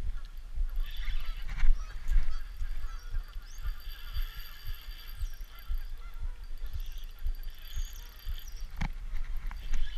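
Geese honking several times, with a constant low rumble underneath.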